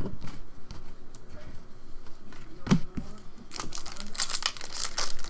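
Trading cards handled with light clicks and slides, then from about three and a half seconds in a foil card pack wrapper crinkling and tearing as it is ripped open.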